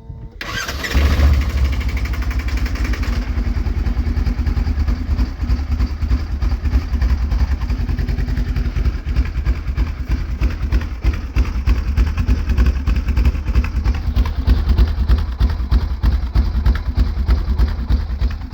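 An engine starts and settles into a loud, uneven, pulsing idle. The uploader takes the lope for an oversized camshaft rather than a misfire.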